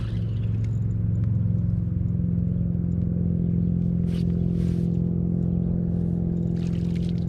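A boat's outboard motor running steadily, its pitch rising over the first second or two as it speeds up and then holding even.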